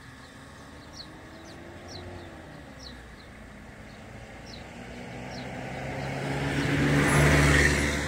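A motor vehicle passes close by: its engine hum grows steadily louder from about five seconds in, is loudest around seven seconds, then begins to fade.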